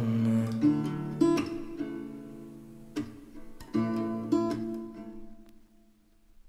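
Background music ending: acoustic guitar strumming a few closing chords that ring out and fade to near silence about five seconds in.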